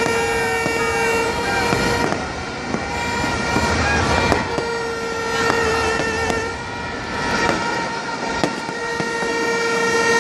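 Three long horn blasts, each about one and a half to two seconds, on one steady pitch. They sound over a crowd's continuous din, with scattered sharp pops of fireworks.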